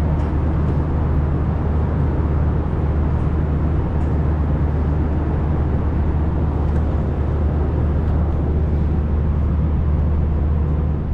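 Steady low cabin drone of a moving vehicle, even throughout, with no distinct events.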